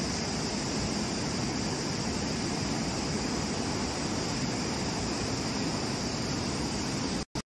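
A steady, even rushing noise with no separate events, broken by a split-second dropout near the end.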